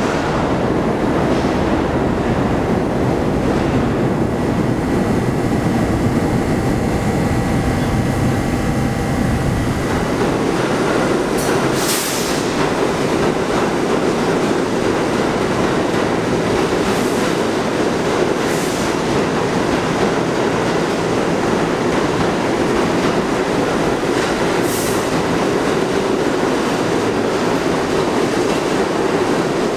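New York City subway trains running through the underground station: a loud, steady rumble of steel wheels on rail, with a faint steady whine in the first third and several brief high wheel squeals later on.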